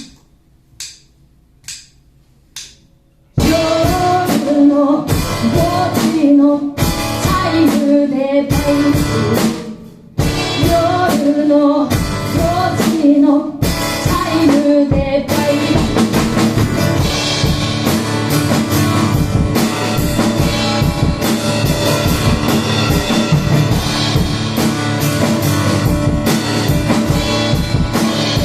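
Three sharp clicks, evenly spaced, count in a live band. About three seconds in, a woman's singing voice enters over drum kit and guitar, carrying on to the end with a brief drop just before ten seconds in.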